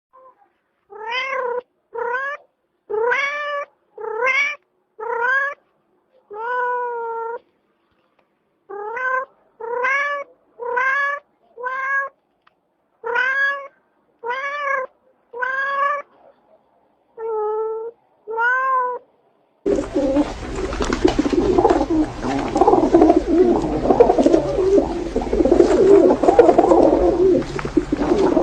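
Domestic cat meowing: about fifteen short meows, each bending up and down in pitch, with silent gaps between them. About twenty seconds in they give way to a louder, continuous rough noise.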